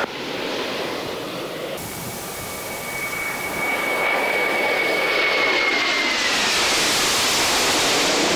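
Jet noise from a formation of four Mitsubishi T-2 trainers, each with twin Adour turbofans, flying over. A thin high whine rides over the jet roar and slides down in pitch in the last couple of seconds, while the roar grows louder through the second half.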